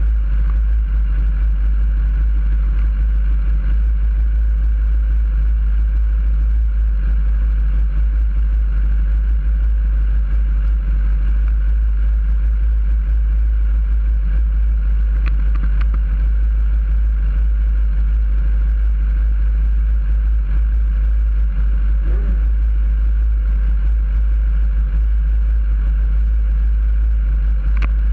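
Sport motorcycle engine idling steadily, heard through a camera mounted on the bike, with other motorcycles idling around it.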